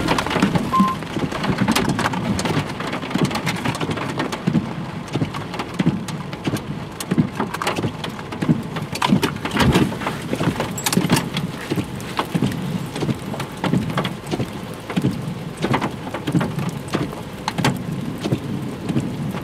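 Heavy rain from a supercell thunderstorm falling steadily, with many sharp drop hits close to the microphone.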